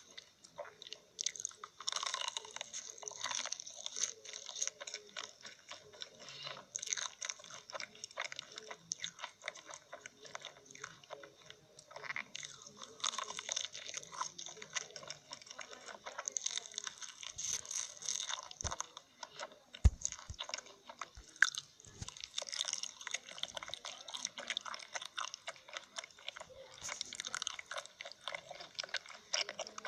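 Close-miked crunchy chewing and biting: a dense, irregular run of crackling clicks, with two sharper knocks about two-thirds of the way through.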